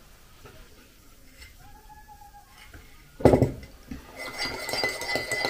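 A single thump about three seconds in, then a teaspoon clinking and scraping in a ceramic mug as a drink is stirred, with a thin steady ringing note under it.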